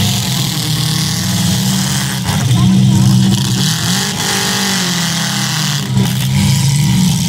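Several demolition derby car engines running and revving together, their pitch rising and falling as the cars accelerate, with a sudden bang about six seconds in.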